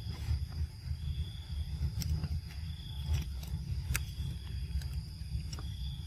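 Insects calling steadily, one high-pitched tone swelling and fading about every second and a half over a second, higher tone, with a low rumble underneath and a few sharp clicks.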